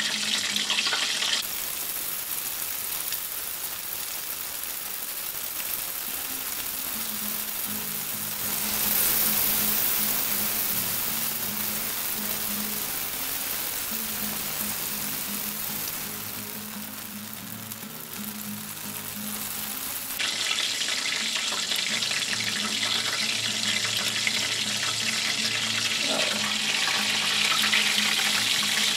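Chicken pieces deep-frying in a pot of hot oil: a steady sizzle and bubbling that grows brighter and louder about two-thirds of the way through. Faint low background music plays under it.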